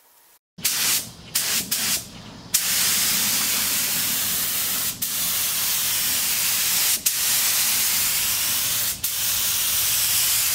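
Compressed-air paint spray gun spraying primer. It opens with a few short trigger bursts, then hisses steadily in long passes, cutting off briefly about every two seconds.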